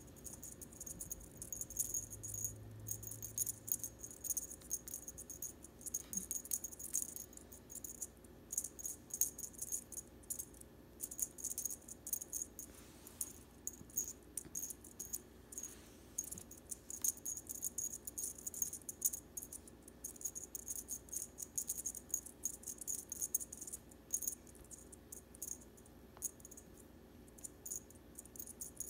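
Cat wand toy jingling and rattling in quick, irregular bursts as it is flicked back and forth for a Maine Coon cat to swat at.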